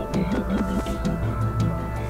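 Background film music: a low hum under pitched tones, with short clicks at a steady beat.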